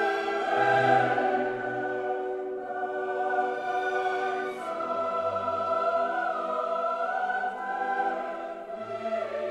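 Background music of a choir singing slow, held chords, which change about halfway through.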